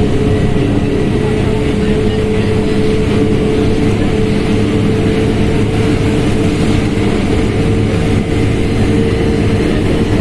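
Mercedes-Benz OF1721L bus's diesel engine running steadily at mid revs, with a steady whine on top.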